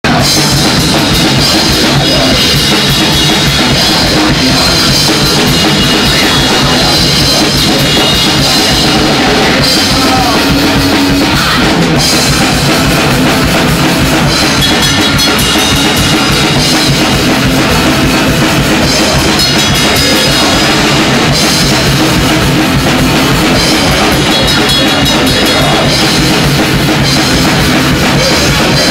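Rock band playing loud and without a break, with drum kit and bass drum prominent under electric guitars, heard live in the room.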